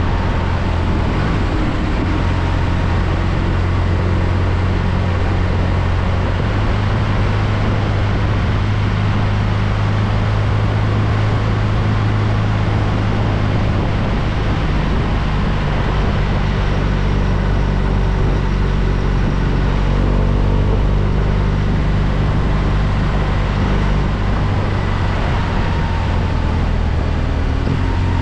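BMW R1200RT motorcycle's boxer-twin engine running on the move, with a steady rush of wind noise over it. The engine note changes a few times as the ride goes on.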